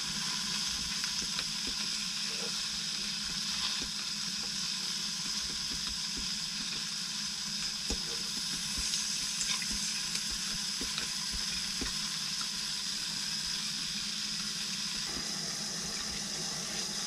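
Steady sizzling hiss of fish cooking in a frying pan beside a portable gas stove, with light scattered clicks of chopsticks against the pan.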